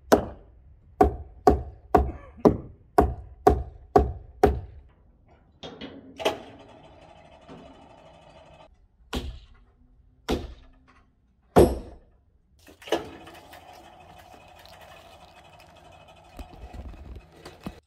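Hammer blows on a log cabin's log wall, about two a second for the first four and a half seconds, then a handful of single scattered knocks.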